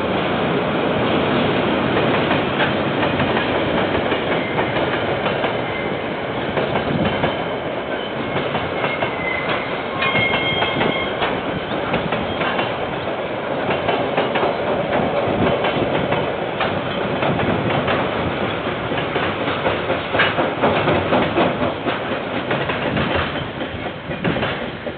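KiwiRail diesel freight train passing: the locomotive, then a long string of wagons with wheels clattering over the rail joints. A brief high squeal comes about ten seconds in.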